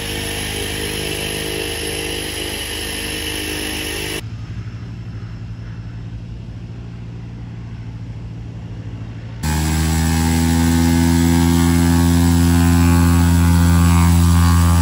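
Cessna 208B Grand Caravan's Pratt & Whitney PT6A turboprop running at idle with the propeller turning: a steady engine hum. It drops to a softer low hum for a few seconds, then about two-thirds through comes in suddenly much louder and fuller.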